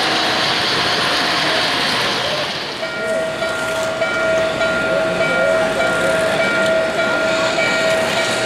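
O-gauge model train rolling along three-rail track over a steady din. About three seconds in, a steady whistle tone starts and holds, with higher tones joining on and off, from the model steam locomotive's sound system.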